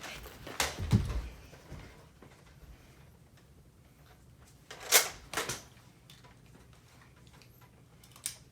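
A few scattered sharp knocks and clicks: a heavier thump about a second in, a pair of clicks about five seconds in, and another click near the end.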